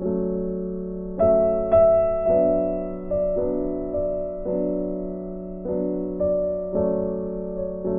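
Background music: a slow, gentle piano tune, notes struck one or two a second and left to fade.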